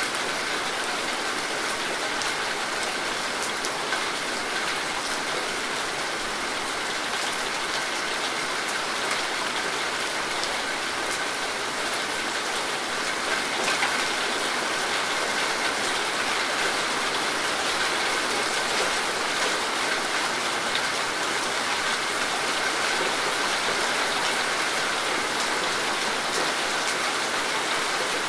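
Steady rain falling on leafy vegetation, a dense even hiss with many individual drops pattering close by. It gets a little louder about halfway through.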